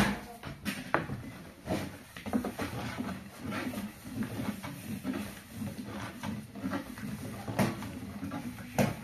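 Irregular knocks, clinks and scraping of pots and utensils being handled during cooking work, with a sharp knock at the start and others about a second in and near the end.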